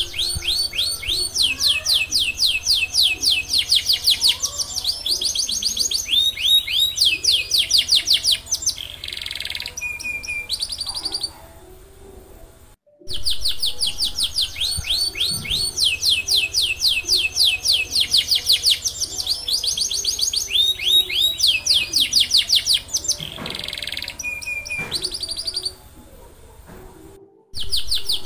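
Domestic canary singing long, fast, rolling trills of rapid repeated notes, with a harsh buzzy note and a held whistle partway through. The song breaks off for a moment about thirteen seconds in and starts over the same way, then breaks off again just before the end.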